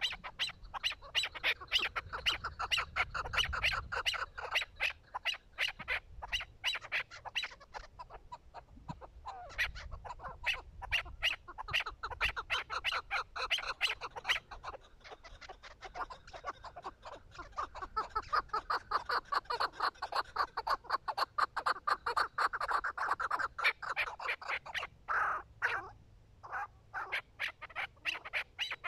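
Chukar partridges calling: long, fast runs of short, repeated clucking notes that go on nearly without a break.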